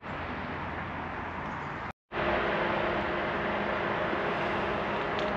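Steady outdoor background noise, broken by a brief dropout about two seconds in. After the dropout it comes back louder, with a steady low drone of a few held tones, like a distant engine or traffic.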